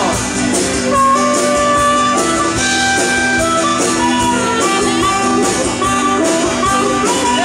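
Live band playing an instrumental break: acoustic and electric guitars and keyboard over a steady beat, with a lead line of held notes on top.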